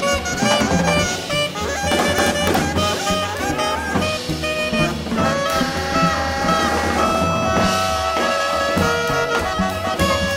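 Small jazz ensemble playing live: bass clarinet and alto saxophone over piano, cello and drum kit, with long held horn notes in the second half.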